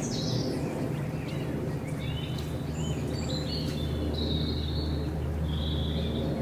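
Several songbirds singing and calling in short chirps and whistles over a steady low rumble.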